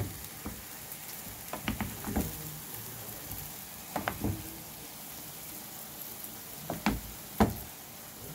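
Ackee and saltfish sizzling softly in a frying pan as a wooden spoon stirs it, with a few scattered knocks and scrapes of the spoon against the pan, the loudest near the end.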